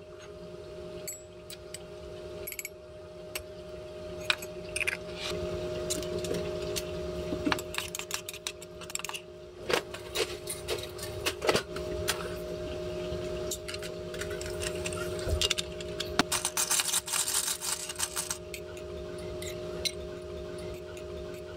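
Long metal bar spoon clinking and scraping against a stainless steel pitcher as yuja syrup is stirred, many small irregular clicks, over a steady hum. Near the end the mix is poured from the pitcher over ice in a glass.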